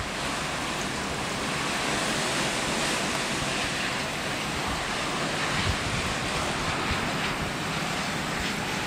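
Steady rushing noise of a wind-driven rainstorm, with gusts hitting the microphone in a few brief low thumps, one about halfway through.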